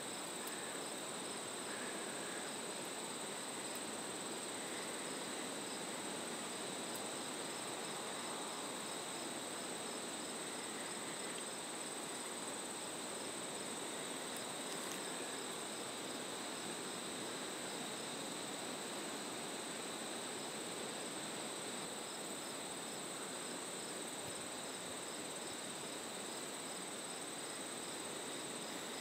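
Insect chorus: a continuous high trill over a steady background hiss.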